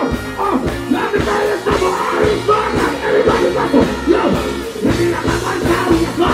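Live dancehall music through a concert sound system: a deejay's voice over a steady beat with heavy bass.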